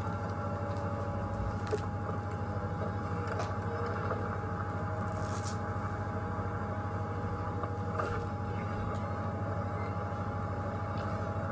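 Safari game-drive vehicle's engine idling: a steady low hum with no change in pitch.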